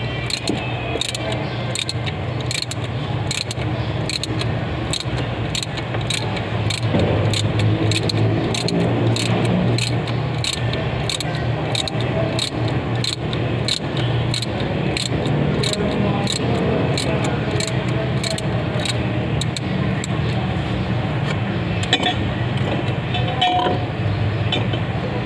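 Metal tool clinks as a wrench turns the forcing screw of a crankshaft pulley puller, with a few sharper clinks near the end as the pulley comes free.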